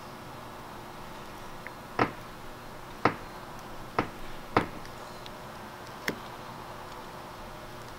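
Sharp clicks and taps from hands pressing sealant tape down onto a metal fan ring flange on a van's sheet-metal roof. There are four distinct clicks about a second apart, then a fainter one, over a faint steady room hum.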